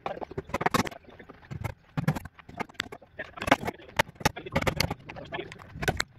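Hammer driving nails into a frame of wooden pallet boards: a string of sharp knocks, about two a second, unevenly spaced.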